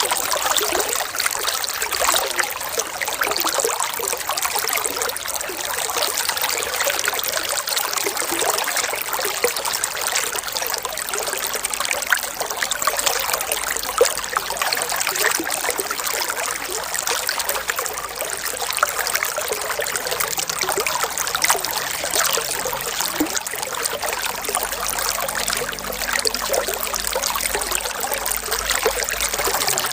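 Water trickling and splashing steadily, like a small stream flowing over stones, with many small splashes.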